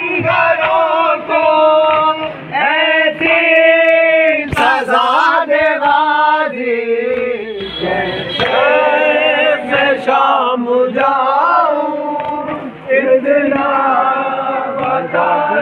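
A crowd of men chanting a nauha, a Shia mourning lament, in unison, with a steady beat of palms striking chests (matam) under the voices.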